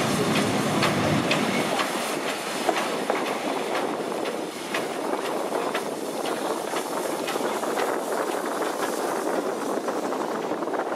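Victorian Railways K-class and R-class steam locomotives rolling slowly past, wheels clicking over the rail joints, with a steady hiss of steam.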